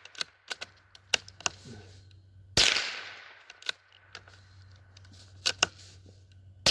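Howa M1100 .22LR rifle fired twice, single sharp shots about four seconds apart, each with a short ringing tail, with small metallic clicks and knocks between them from the action being handled as the rifle keeps failing to feed reliably.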